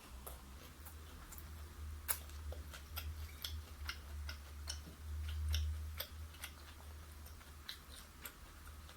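Crunchy chewing of fried chicken close to the microphone: a run of sharp, irregular crackling clicks over a low steady hum.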